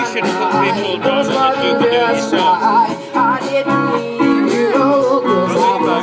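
A band playing a song: a voice singing over guitar, with a steady beat.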